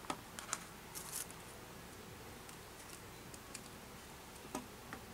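Scattered light clicks and taps of plastic and metal from an Asus X453M laptop keyboard being handled and lifted out of its palmrest frame: two near the start, a few about a second in, and one more near the end, over a steady faint hiss.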